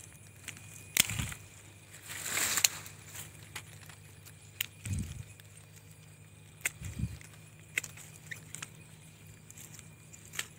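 Hand pruning shears snipping small branches at the base of a fig tree, a sharp click several times, with a rustle of leaves and twigs about two seconds in and a few low thumps.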